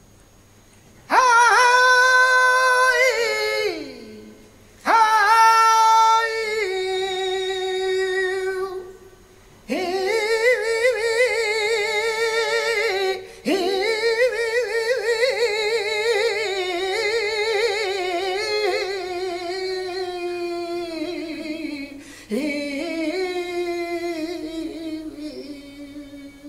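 A male flamenco singer singing tonás unaccompanied, with no guitar. He sings five long, heavily ornamented phrases with a wavering pitch, each starting high and sliding down, separated by short breaths.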